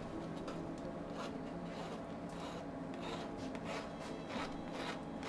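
A metal spoon scraping rhubarb purée off the underside of a metal mesh sieve, faint, irregular scraping strokes. A steady low hum runs underneath.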